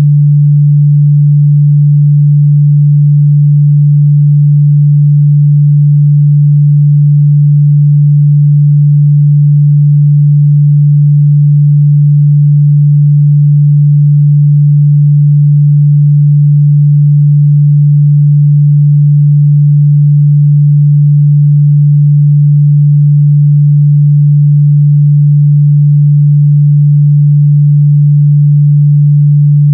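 Continuous 146 Hz pure sine-wave test tone, a steady low hum held at one pitch and a constant loud level.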